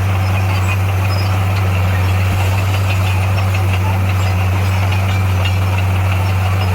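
Bulldozer's diesel engine running steadily with a deep, constant hum.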